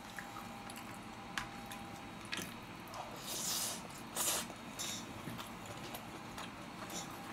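Close-miked eating: a plastic spoon clicking in a plastic takeout tray, then a spoonful of fried rice taken into the mouth and chewed, with soft mouth clicks and two short hissy mouth sounds about halfway through.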